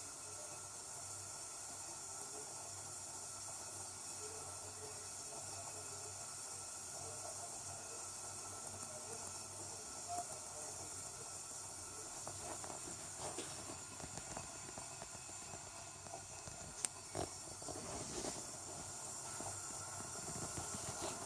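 Steady hiss of a kettle kept on the stove heat, with a few light knocks and clicks in the second half.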